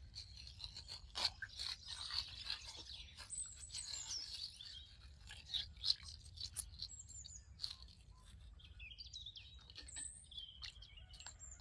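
Faint crinkling and rustling of a plastic bag being handled and torn open, with scattered small clicks. Birds chirp in the background, mostly in the second half.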